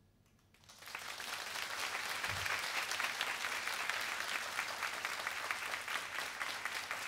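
Concert audience applause, starting about a second in and building quickly into steady clapping from the crowd, with a brief low thud partway through.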